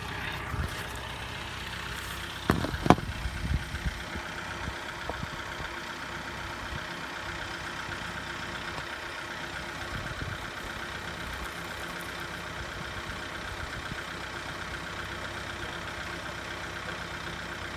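John Deere 4066R compact tractor's diesel engine running steadily, driving a three-point PTO post-hole auger. A few sharp knocks between about two and a half and three and a half seconds in.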